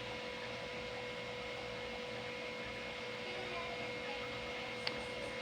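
Steady, faint electrical hum with a few high, even tones over background hiss; one short faint click near the end.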